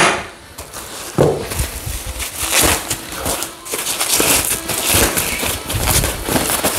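Plastic bags and foam packing sheet crinkling and rustling as they are handled and pulled out of a cardboard box. There is a sharp click at the start and a knock about a second in.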